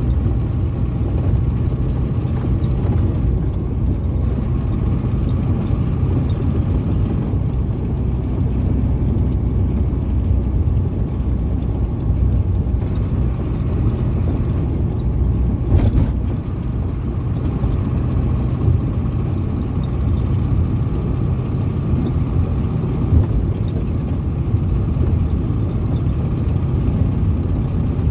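A Ford Cargo 712 truck's diesel engine and road noise while cruising at a steady speed, a continuous low rumble. A single sharp knock is heard about halfway through.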